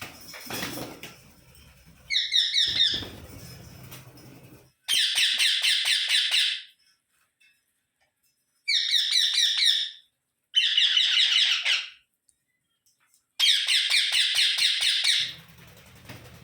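Rose-ringed parakeets calling in about five bursts of one to two seconds each, every burst a fast run of shrill notes, with short silent gaps between.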